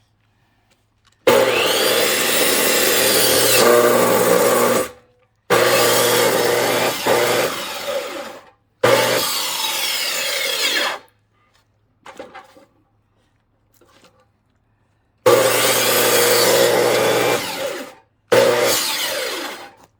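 Electric power saw cutting into a log of firewood in five short runs. Each run starts and stops abruptly, and its pitch shifts as the blade loads in the wood.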